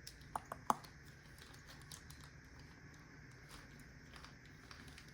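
Small metal clicks and clinks from handling a lock and its keys: a few sharp, ringing clicks in the first second, then only faint small handling ticks.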